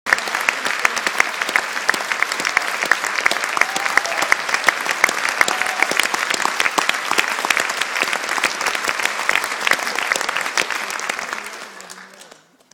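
Theatre audience applauding steadily, the clapping dying away over the last second or so.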